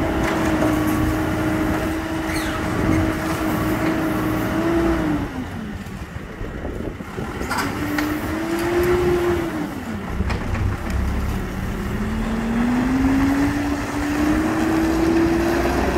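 Hidromek 102 S backhoe loader's diesel engine running steadily, dropping in speed about five seconds in, revving up and down again, then rising gradually as the machine drives off. A few short knocks sound over it.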